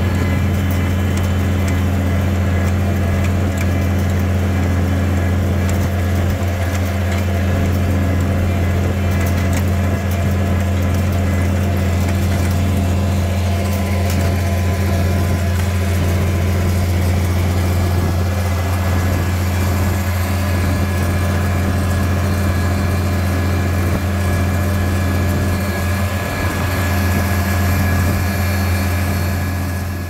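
Farmall 656 tractor engine running steadily at a constant speed, a loud, even drone with no change in pitch.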